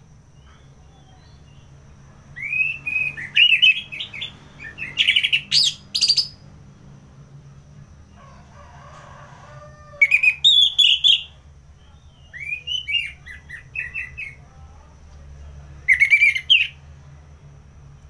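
Orange-headed thrush singing: loud phrases of quick, warbled whistled notes mixed with sharp high notes, coming in several bursts with pauses of a few seconds between them.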